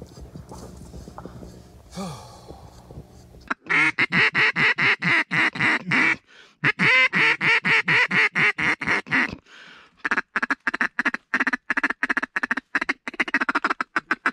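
Duck call blown in three long runs of rapid, evenly spaced quacking notes, about eight a second, with short breaks between runs. It is feed-chatter calling to draw ducks in to hunters.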